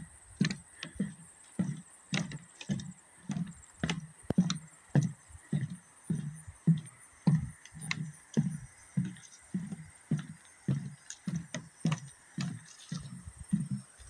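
Footsteps walking at a steady pace on a wooden boardwalk: dull thuds on the planks, a little under two steps a second, some with a sharp knock of board.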